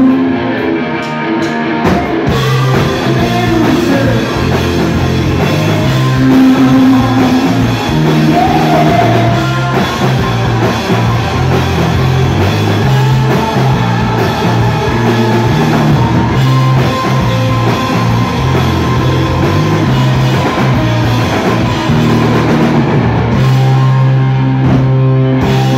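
Live rock band playing loud: distorted electric guitar, bass guitar and drum kit, the full band coming in about two seconds in after a thinner opening.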